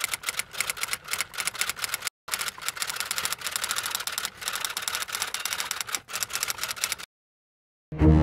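Fast, continuous typewriter key clicks as a typing sound effect, broken by a brief pause about two seconds in and stopping about seven seconds in. Near the end, low bowed-string music starts.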